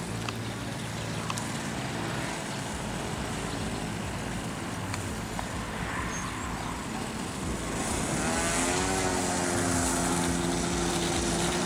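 Kawasaki TH34 two-stroke brushcutter engine of a homemade RC plane, turning a 15x10 propeller directly, running at a low steady speed. About eight seconds in it revs up and holds at a higher, louder pitch.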